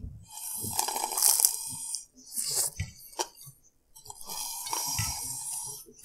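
Two long slurps of soda sucked up through a drinking straw from a glass, each about a second and a half, with chewing sounds and a short click in between.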